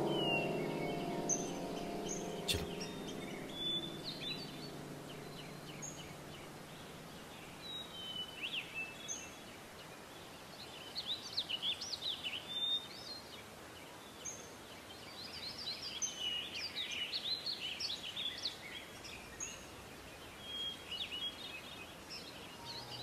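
Small birds chirping and twittering in short scattered calls, busier about halfway through and again later. Background music fades out in the first few seconds, and there is a single sharp click about two and a half seconds in.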